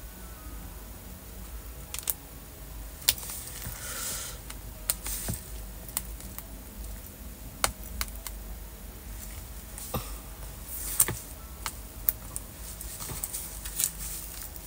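Scattered small clicks and taps, with brief scratching now and then, as a pointed tool and fingertips pick at heat-transfer vinyl lettering on a corduroy fabric pouch.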